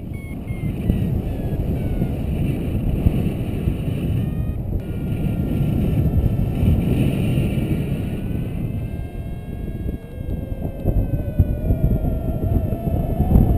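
Wind buffeting the camera's microphone during a paraglider flight: a loud, gusting rumble, with faint wavering whistle-like tones above it.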